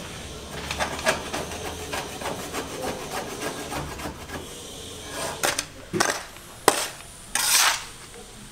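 Hand rasp scraping along the edge of a lightweight aerated concrete block in repeated back-and-forth strokes. Near the end come a few louder sharp knocks and a short, harsh scrape.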